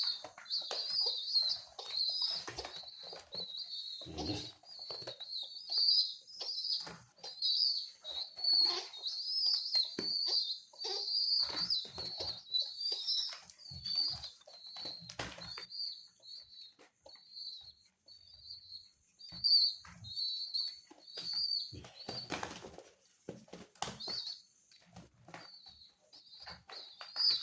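Young domestic pigeon squab squeaking in a continuous string of high begging peeps while being hand-fed, with repeated bursts of wing-flapping and scuffling, the loudest a little before the end.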